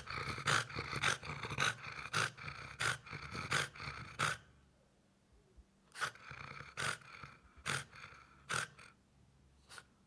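French bulldog growling and snorting: a rapid run of rough growls for about four seconds, then after a short pause several separate sharp snorts.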